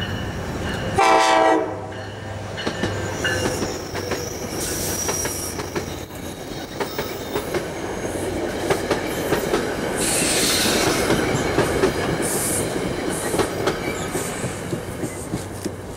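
NJ Transit locomotive-hauled commuter train passing close by: a short horn blast about a second in, then the running noise of the locomotive and its coaches, with the wheels clicking over rail joints and a brief hiss around ten seconds in.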